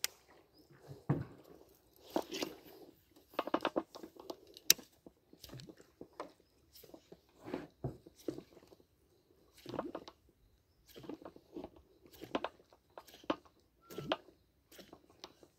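A popper lure being worked back on a baitcasting rod and reel: short crackling, crunching bursts come about once a second as the rod is twitched and the reel cranked.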